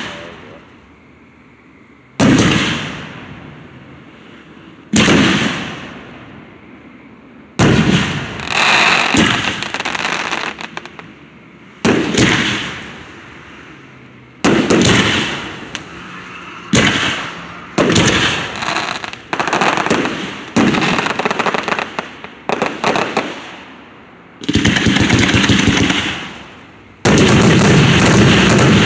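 Aerial fireworks shells bursting overhead: a sharp bang every two to three seconds, each fading out in a crackling tail. In the last few seconds several shells go off together in a dense, rapid barrage of cracks.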